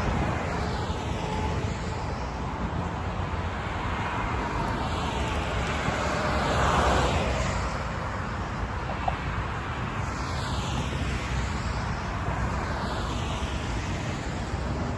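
Road traffic on a multi-lane divided highway: cars passing one after another with a steady tyre and engine hiss, one louder pass about halfway through.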